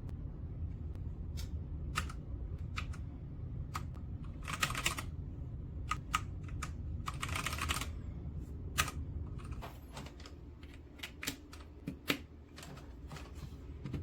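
Keys of a Redragon K556 mechanical keyboard being pressed in an irregular run of clicks, with two quicker flurries about five and seven and a half seconds in, over a low steady hum.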